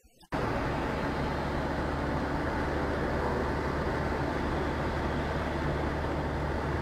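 Steady car engine drone and tyre noise on a wet road, heard from inside the cabin; it comes in suddenly just after the start.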